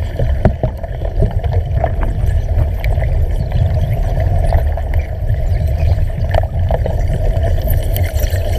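Underwater cutting torch burning through steel: a steady bubbling rumble from the gas and bubbles at the cut, with irregular crackles and pops throughout.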